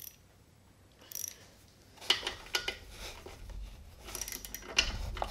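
Metal hand tools clinking and clicking as they are handled and fitted to the engine, a run of irregular sharp clicks and rattles that starts about two seconds in.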